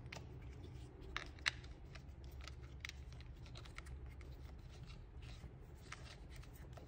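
Faint clicks and handling noise of a phone clamp being fitted onto the mount of a metal-bodied phone stand, with a sharper click about one and a half seconds in, over a steady low hum.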